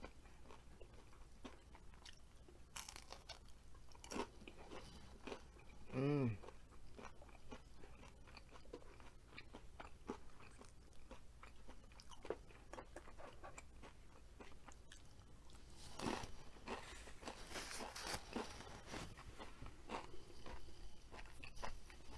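Close-up crunching and chewing of a crispy fried hash brown, in small crackling bites that grow denser near the end. About six seconds in comes a short hummed "mm" of enjoyment.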